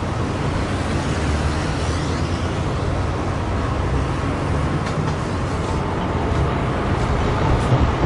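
Steady road traffic noise, a low rumble of passing vehicles.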